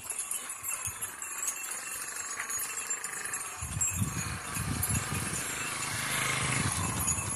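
A herd of Gir cows walking on a road: hooves clattering and cattle bells jingling, with a low rumble that builds in the second half.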